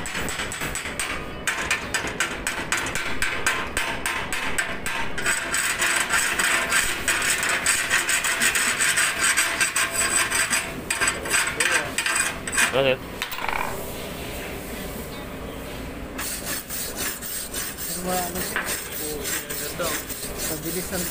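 Chipping hammer tapping rapidly on a fresh weld bead on steel flat bar, knocking off the slag. After about five seconds it gives way to a long stretch of scraping over the bead, with more rhythmic strokes near the end.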